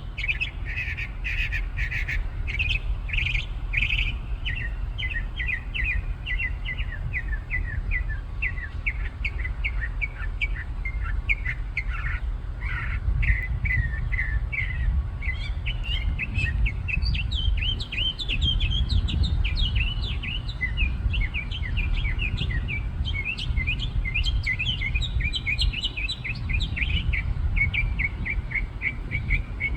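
A songbird singing a long, varied song of rapid chirps and trills, with phrases repeated several times before switching, over a steady low rumble.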